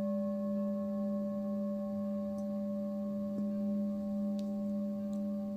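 Tibetan singing bowl ringing on after being struck: a steady low tone with a clear higher overtone and several fainter ones above it, sustaining evenly.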